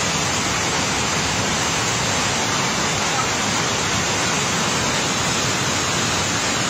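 Flash-flood torrent of muddy water rushing down a stream channel and over concrete steps: a steady, dense rush of water.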